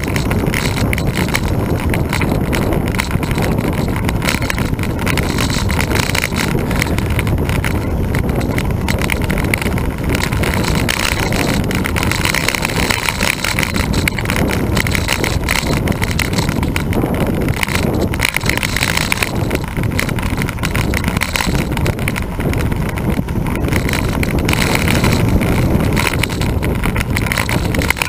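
Steady wind noise and road rumble picked up by a camera riding on a moving road bicycle on asphalt.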